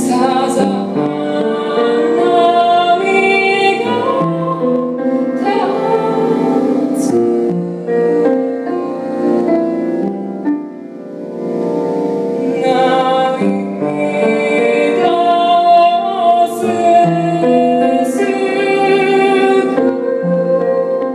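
A woman singing to her own piano accompaniment, in a song with a Japanese traditional flavour. The voice drops out briefly about ten seconds in, leaving a softer piano passage, before the singing resumes.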